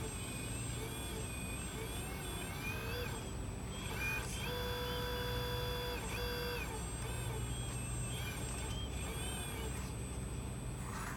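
Hydraulic pump of a scale RC excavator whining as the boom and bucket are worked through sand, its pitch rising and falling with each movement over a low steady hum. About four and a half seconds in, the whine holds steady and higher for about two seconds.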